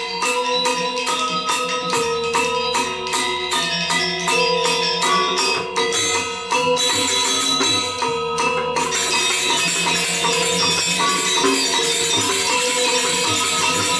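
Balinese gamelan playing Legong dance accompaniment: pitched bronze metallophones and gongs over clashing cymbals. The strokes fall at a steady pulse of about two to three a second, then about nine seconds in the playing turns dense and fast, into a continuous cymbal shimmer.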